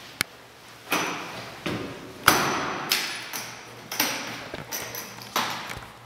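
A series of sharp knocks, about one or two a second at uneven spacing, each with a short ringing tail.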